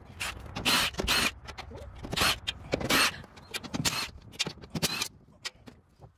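Metal hand tools clanking, clicking and scraping against the steel floor plate of a mini excavator's cab while its bolts are undone, in an irregular run of knocks and a few longer scrapes.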